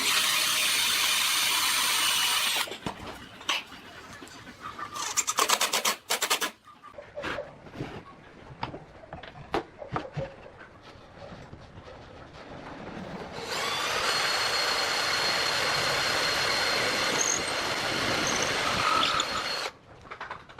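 An electric power tool runs at a steady speed with a thin high whine for about two and a half seconds, then stops. Scattered clicks and knocks follow, with a short rapid rattle. About two-thirds of the way in it runs steadily again for about six seconds and cuts off suddenly near the end.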